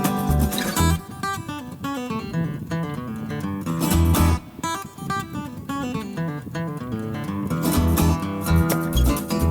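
Background music led by acoustic guitar, with low bass notes that are strongest near the start and again near the end.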